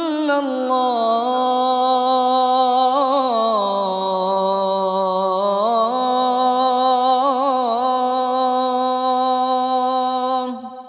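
A muezzin's solo voice chanting the Fajr adhan, drawing out 'illa Allah' of the line 'ashhadu an la ilaha illa Allah' in one long ornamented melisma that dips lower in the middle and rises again. The voice stops near the end, leaving a fading echo.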